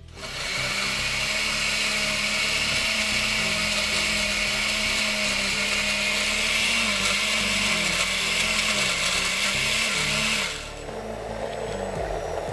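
Electric mixer grinder running at full speed, grinding ginger, garlic and onion with a little water into a paste. Its motor pitch wavers as the load shifts. It drops away about ten seconds in.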